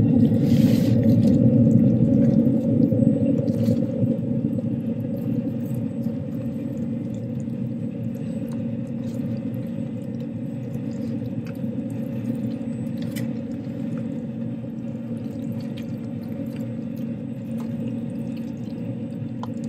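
Steady hum of a Green Mountain Grills pellet grill's fan running with the lid open, with a few faint scrapes of a spoon against the aluminium tray as the queso is stirred.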